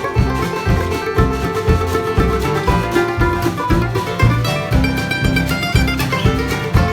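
A band playing a song: plucked guitar over a steady low beat of about two a second.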